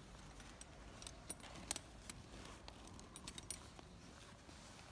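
A quiet pause with faint low room hum and scattered small clicks and clinks, the sharpest about a second and a half in and a little cluster near three and a half seconds.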